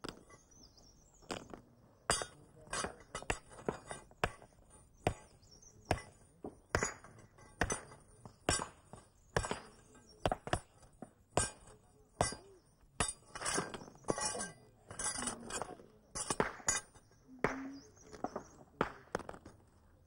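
Hand hammer striking stones again and again, breaking rock by hand into road gravel. Each blow is a sharp clink, in an uneven series of about one to two strikes a second.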